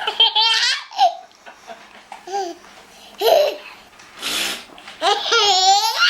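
Baby laughing in long, high, quavering squeals, once at the start and again near the end, with shorter noisy bursts in between.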